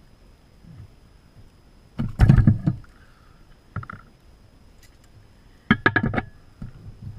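Camp cooking gear being handled: two bursts of quick clattering knocks, about two seconds in and again about six seconds in, with a smaller knock in between and some brief ringing.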